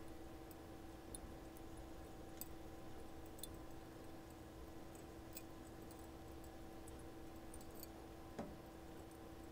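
Quiet room tone: a steady low hum with sparse faint ticks scattered through it.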